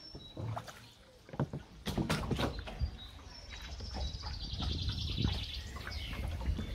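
Small songbirds chirping, with a run of quick twittering about four seconds in. A low rumble and a few knocks lie underneath from about two seconds in.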